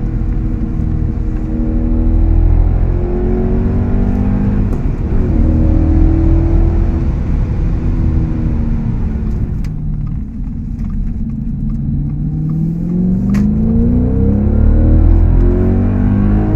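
Audi S5 with an AWE Tuning aftermarket exhaust, heard from inside the cabin, accelerating through the gears: the engine note rises and drops back at each upshift. About two-thirds of the way in it eases off and goes quieter, with a couple of sharp clicks, then pulls up steadily through the revs again.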